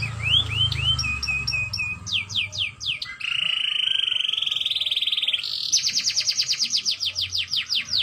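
Domestic canary singing a varied song. It opens with rising whistled glides, a run of short repeated notes and quick falling sweeps. About three seconds in comes a long rapid rolling trill, followed by a fast pulsed trill of repeated notes.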